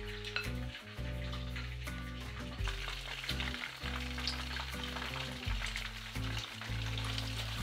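Shrimp tempura frying in oil in a frying pan, a steady sizzle as the pieces are turned with chopsticks.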